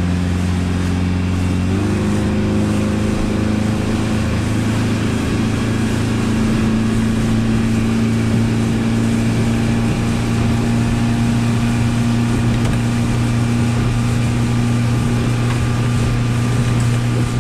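Outboard motor running at speed on a planing boat, its pitch rising a step about two seconds in and then holding steady, over the rush of water from the wake.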